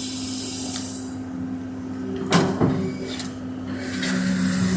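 Excavator engine running steadily, with a hiss that fades about a second in and two sharp knocks a little past halfway as the machine works.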